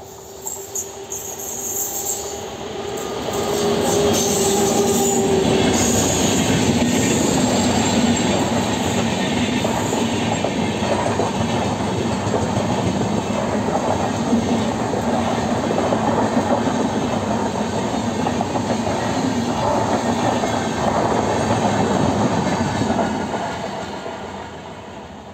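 Express train of AC double-decker coaches passing close by behind an electric locomotive: wheels rumbling and clattering on the rails. The noise builds over the first few seconds as the locomotive arrives, holds steady and loud while the coaches go by, and fades near the end as the last coach draws away.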